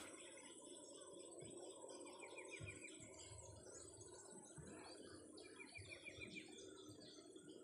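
Faint birdsong: several birds chirping, one giving a quick run of chirps twice, over a steady high insect drone.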